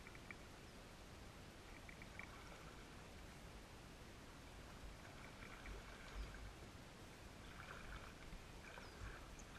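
Faint sloshing and small splashes of shallow water, growing a little busier near the end.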